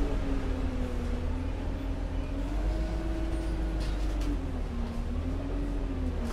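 Heuliez GX 317 GNV natural-gas city bus running under way: a steady low rumble with a droning engine note that slowly rises and falls in pitch. A few brief clicks or rattles about four seconds in.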